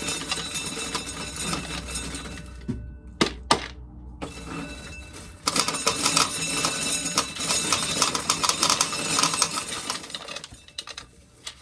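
Dry field corn being shelled off the cob, the kernels rattling and clattering down in a dense stream. It comes in two long runs, with a short break about three seconds in that holds a couple of sharp clicks.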